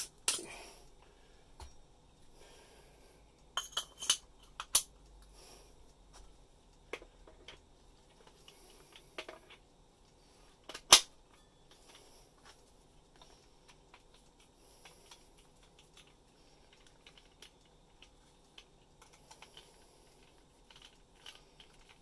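Scattered sharp clicks and clacks of a Miyanaga S-Lock bimetal hole saw being taken off and a 100 mm cup fitted onto its arbor, with soft handling sounds between. There is a quick run of clicks about four seconds in and a single louder click about eleven seconds in.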